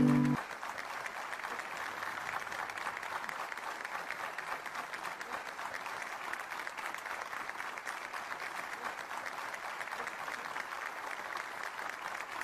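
Studio audience applauding steadily. A held music chord cuts off just after the start.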